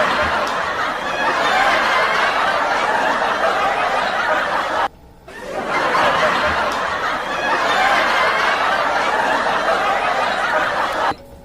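Crowd laughter, heard as a recorded clip played twice: it cuts off abruptly about five seconds in, starts again a moment later, and cuts off again near the end.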